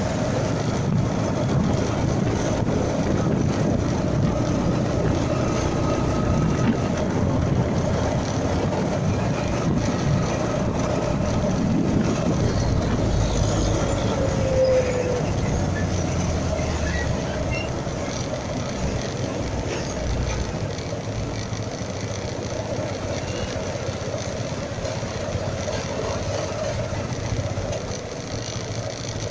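Road and wind noise from a phone dashcam on a moving motorcycle, with the rumble of passing cars and trucks. It is steady and a little quieter in the second half.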